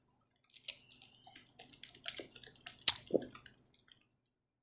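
Scattered small crackles, ticks and drip-like sounds from a foil-covered pan of boiling seafood working up steam, with one sharp click a little under three seconds in.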